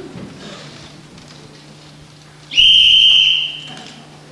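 A single loud whistle blast, one steady high note lasting about a second, starting about two and a half seconds in: a drill-style command signal, after which the performers bend to their flowerpot stacks.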